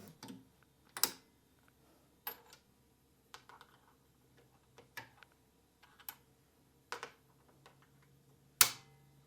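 Yale key blanks snapping one by one into the key holder of an Ilco Engrave-It Pro engraver: a series of about nine sharp clicks a second or so apart, the loudest near the end.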